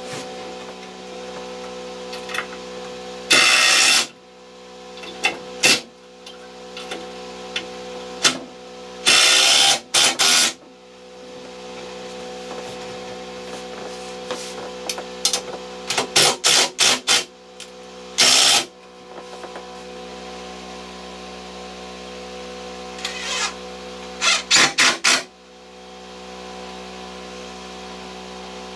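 Cordless impact driver sinking screws into 2x4 framing lumber in a series of short bursts, some broken into quick stutters, over a faint steady hum.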